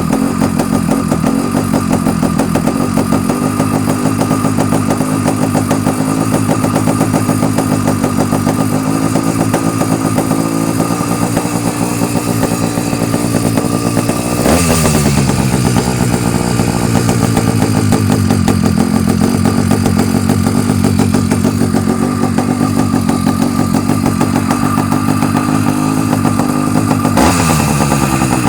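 Avenger 85 bike's engine idling with a steady rumble, blipped twice, about halfway through and near the end, each rev rising sharply and falling quickly back to idle.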